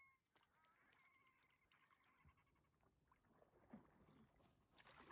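Near silence on calm water: a few faint pitched animal calls early on, then a short rush of splashing water near the end.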